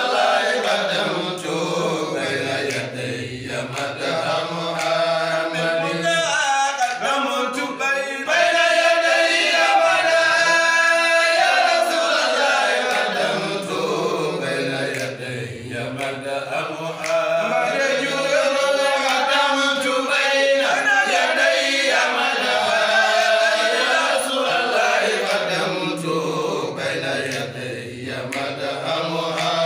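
A group of men chanting an Islamic devotional song for Ramadan, one lead voice with others singing along, in long sliding melodic phrases.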